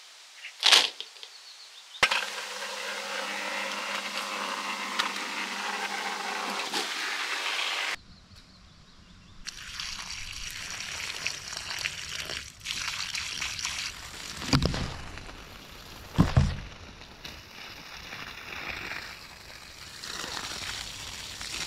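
Drainage pump emptying groundwater from a flooded trench, water pouring from its discharge, in short cut-together clips. There is a sharp knock about a second in and two heavy thuds about two-thirds of the way through.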